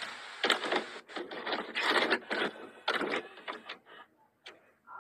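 Harsh, stuttering static-like noise in irregular bursts, a glitch effect, thinning out and going faint about four seconds in.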